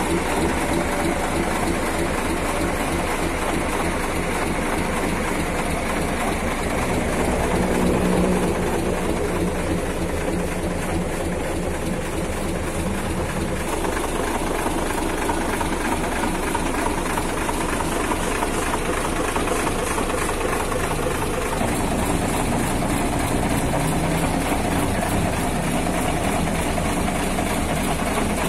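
Mitsubishi Fuso dump truck's diesel engine idling steadily.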